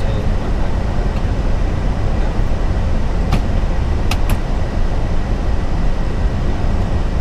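Steady rushing noise on an Airbus A380 flight deck in flight: airflow and air-conditioning noise, heaviest in the low range. A few short clicks come a little past three seconds and around four seconds in.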